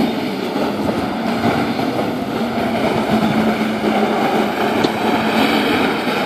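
Watercraft engine running steadily, a constant hum over rushing water and spray.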